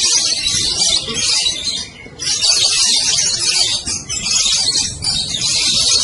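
Many caged contest lovebirds chattering together in a dense, continuous high-pitched chorus that drops away briefly about two seconds in, over a low background of crowd noise.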